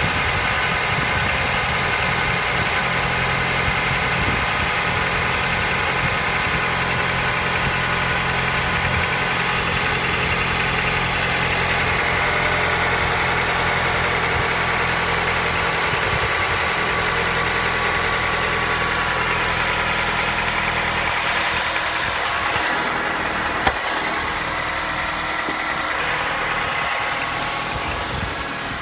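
Seventh-generation Honda Accord 2.0-litre four-cylinder engine idling steadily with the knock it is recorded to show. A single sharp click sounds about three-quarters of the way through.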